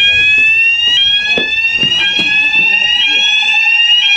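Building fire alarm sounders going off during a manual call-point test: a loud rising sweep tone that resets and repeats about once a second, with a steadier lower tone growing stronger in the second half.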